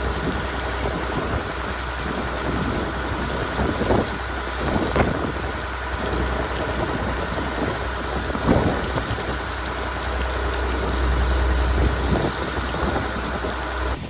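Wind buffeting the microphone, a heavy steady rumble, with the dry leaves and husks of standing corn rustling in short bursts.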